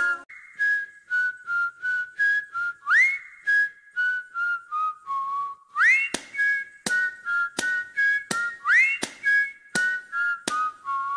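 Background music: a whistled melody with an upward swoop about every three seconds, over light clicking percussion in a steady beat.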